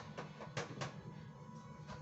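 Music playing, with several short, sharp knocks: four in the first second and one near the end.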